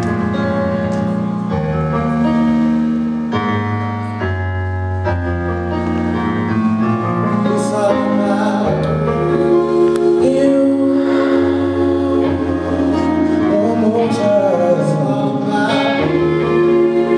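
A band playing a slow song's intro: sustained keyboard chords over a bass line that changes every couple of seconds, with a singing voice joining about halfway through.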